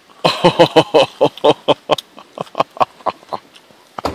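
A man laughing hard, a rapid run of breathy ha's at about five a second, loudest at first and trailing off into wheezy gasps.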